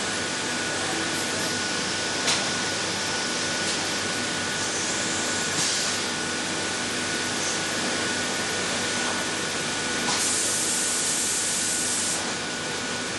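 Compressed air hissing steadily at the pneumatic valve grinding machine, with a faint steady whine under it. About ten seconds in a stronger air hiss lasts some two seconds, and a couple of light clicks are heard earlier.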